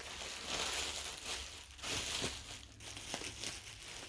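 Bubble wrap crinkling and rustling as it is pulled by hand off a resin doll, with a few faint clicks.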